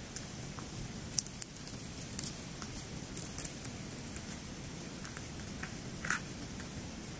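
Syrian hamster chewing and nibbling a piece of food held in its paws: scattered small crisp clicks, with a few sharper ones about a second in and again about six seconds in, over faint steady background noise.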